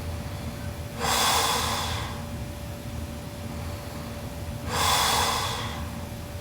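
A sleeping girl snoring: two loud, hissing breaths, each about a second long and about four seconds apart, over a low steady rumble.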